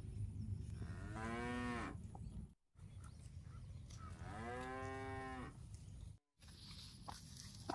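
Cattle mooing twice: two drawn-out moos that rise in pitch at the start and then hold, the second longer, over a steady low rumble.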